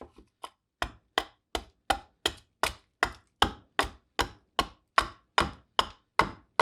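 Hatchet chopping into green black walnut in quick, even strokes, about two and a half a second, the first couple lighter. It is hewing the bowl blank down below the pith.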